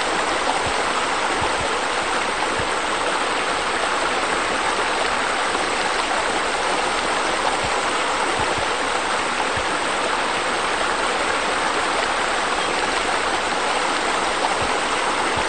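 Steady rushing and splashing of water, as from pool bubblers spraying up out of a shallow ledge and falling back into the pool.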